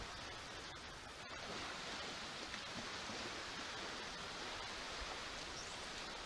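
Steady hiss of small waves breaking along a flat sandy shore, with an uneven low rumble of wind on the microphone.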